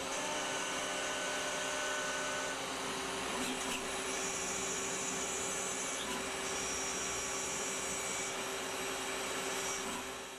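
Citizen A20VII CNC Swiss-type lathe machining a stainless steel bone screw. It gives a steady mechanical hum and hiss with a high whine that switches on and off and shifts a few times, plus a few light clicks.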